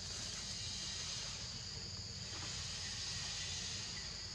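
Steady outdoor forest ambience: a continuous high insect drone over a low rumble.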